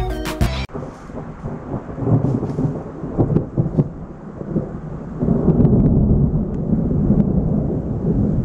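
Rolling thunder from a storm moving in: a deep, continuous rumble that swells and grows louder about five seconds in.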